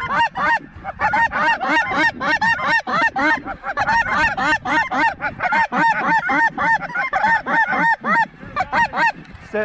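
Snow geese calling: a dense, unbroken chorus of short, high-pitched honks, several a second, from a large flock over the decoys.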